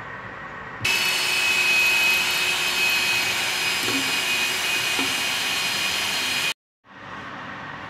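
Compressed air blowing steadily through a thin-nozzled air gun into the machine's parts: a loud hissing rush with a high whistle. It starts suddenly about a second in and cuts off abruptly about six and a half seconds in.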